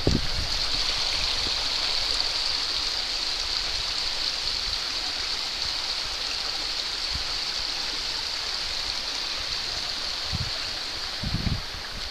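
Waterfall: a steady, even rush of falling water, easing slightly toward the end, with a couple of low thumps near the end.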